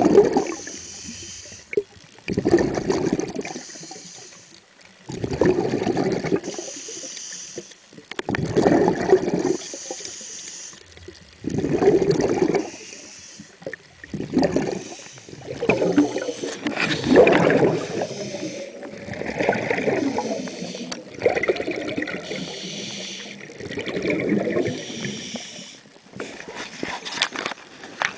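Scuba diver breathing through a regulator, picked up by an underwater camera close by: a loud burst of bubbling exhaust about every three seconds, with a fainter hiss between the bursts as he breathes in.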